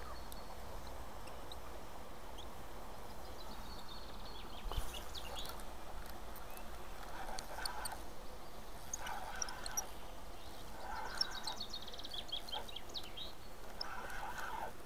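Birds chirping in quick runs of high notes, twice, over a steady outdoor hiss.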